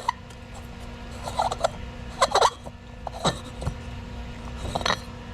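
Parts of a disassembled pool light fixture being handled: four short clinks and squeaky scrapes about a second apart.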